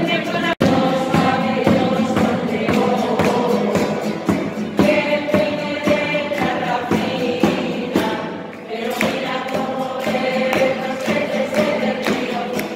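A small group of voices singing a Christmas carol to the Christ child, with acoustic guitar and a rope-tensioned drum beating in time. The sound cuts out briefly about half a second in.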